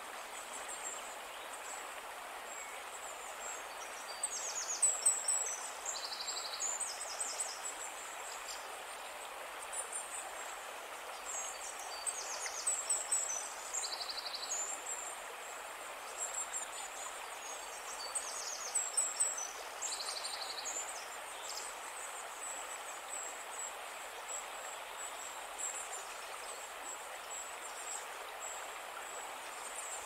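Steady rush and splash of water falling down a small cascading forest waterfall. Over it, a songbird repeats short, high chirping and trilling phrases several times.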